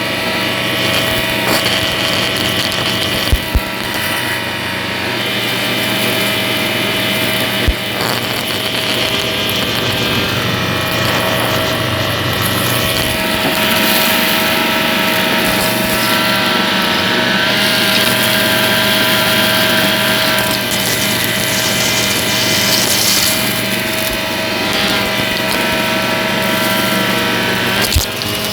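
Shark vacuum cleaner running steadily with a constant motor whine, broken by a few short sharp clicks.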